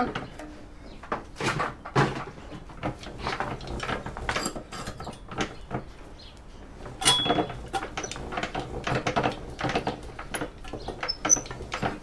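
Hand-cranked Enerpat copper wire stripper being worked as thick, kinked scrap copper cable feeds through its rollers and blade: irregular metallic clicks, clunks and rattles from the unbolted machine, with a short high squeak about seven seconds in.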